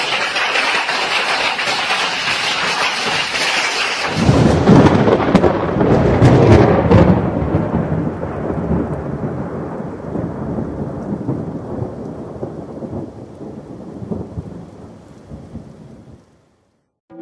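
Heavy storm rain hissing steadily, then about four seconds in a loud clap of thunder breaks in and rumbles on, slowly fading away over about ten seconds.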